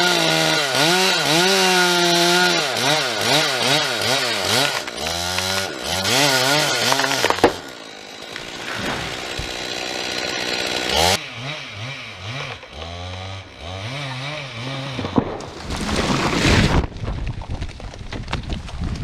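Two-stroke chainsaw cutting into a beetle-killed pine, its engine speed rising and falling under load. About seven and a half seconds in it drops off, then revs again in short blips, and a burst of noise follows near the end.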